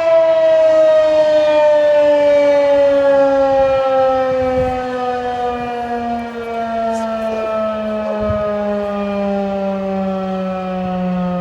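Federal Signal 2001-SRNB outdoor warning siren sounding loud, its pitch gliding slowly and steadily downward as the rotor winds down.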